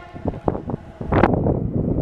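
A train horn blast trails off in the first half second. About a second in, a train's rumble and rail clatter start up sharply.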